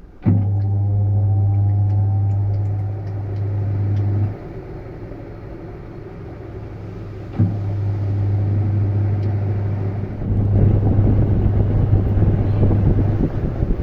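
Washing machine motor humming loudly, switched on with a click and then winding up, with rising whines as the drum gets going. It stops about four seconds in and clicks on again about three seconds later. A louder rushing, churning noise joins for the last few seconds.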